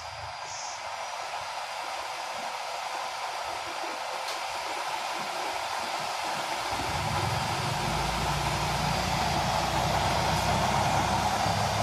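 Blower fan of a used-oil burner stove running, a steady rushing hiss of forced air that grows gradually louder. About seven seconds in a low rumble joins it.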